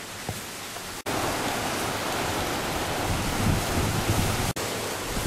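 Steady rush of ocean surf with wind buffeting the microphone in low gusts. It jumps louder after a brief dropout about a second in, and there is another short dropout near the end.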